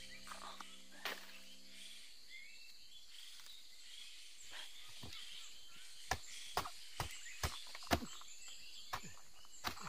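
Forest ambience with faint high chirps while a banana flower is handled, then a run of about seven sharp knocks, roughly two a second, in the second half as the banana flower's heart is chopped against a log.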